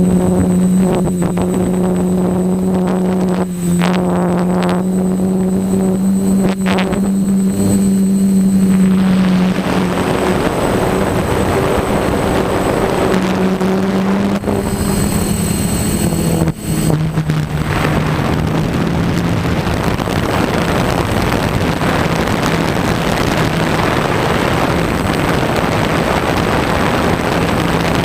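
DJI F550 hexacopter's electric motors and 10-inch propellers humming steadily in flight, the pitch dropping slightly a little past halfway. Rushing wind grows louder from about a third of the way in.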